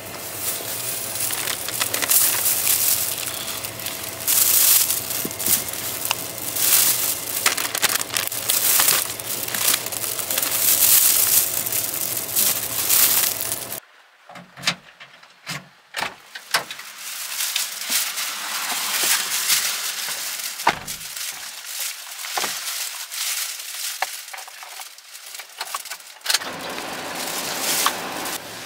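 Paper bag and wrapping crinkling and rustling as purchases are packed at a shop counter, a dense run of crackles over a faint steady hum. About halfway through this cuts off, and raindrops tap and patter on the car's roof and windows in scattered ticks over a soft hiss.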